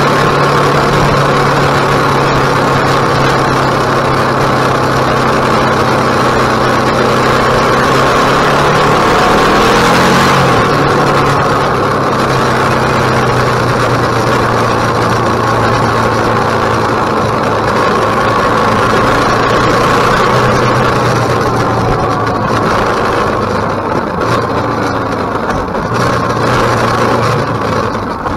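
KTM 1050 V-twin motorcycle engine running at steady revs on the move, over a constant rush of wind. About ten seconds in the engine note drops and then holds steady again.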